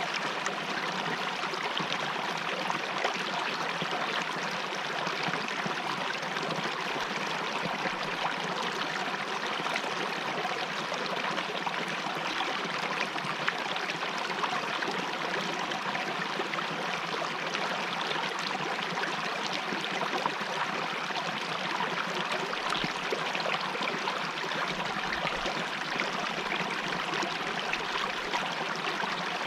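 Mountain river water flowing in a steady, even rush.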